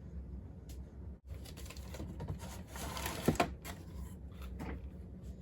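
Packaging being handled: rustling with a few sharp clicks, the longest rustle in the middle, over a steady low hum.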